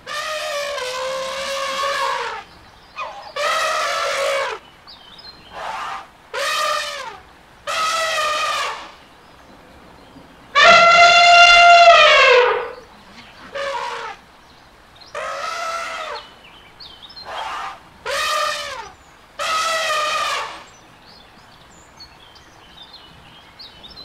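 Elephants trumpeting: a series of about a dozen brassy trumpet calls, each from a fraction of a second to about two seconds long, with quiet gaps between. The longest and loudest call comes about ten seconds in, its pitch dropping at the end.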